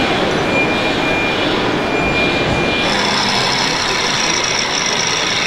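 Radio-controlled model trucks running amid a steady exhibition-hall din. A high electronic tone comes and goes over the first three seconds, then the sound changes abruptly to a steady high whine over the din.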